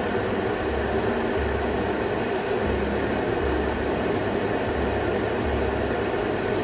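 Mueller Ultra M99S 1500 W glass electric kettle heating water toward the boil: a steady rushing hiss with a low rumble that swells and fades in short, regular pulses.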